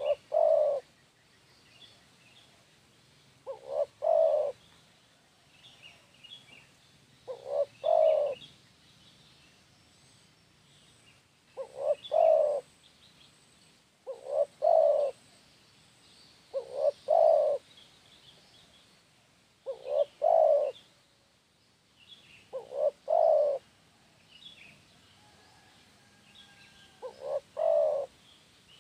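Spotted dove cooing: a short phrase of two or three coos repeated every three to four seconds, with faint chirps of small birds in the background.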